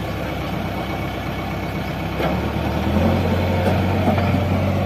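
Heavy diesel machine engine running steadily, its note changing about three seconds in.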